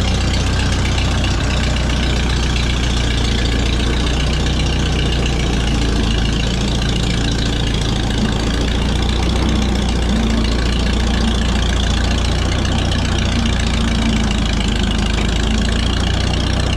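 Minneapolis-Moline tractor engine idling steadily.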